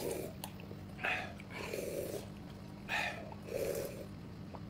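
A person's close-up breathing or mouth sounds: a short hiss followed by a lower huff, repeating about every two seconds.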